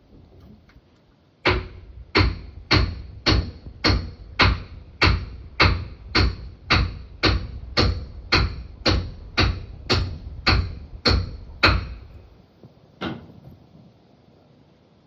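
A steady run of about nineteen sharp, evenly paced knocks, a little under two a second, each with a short ringing tail. One last knock follows about a second and a half after the run stops.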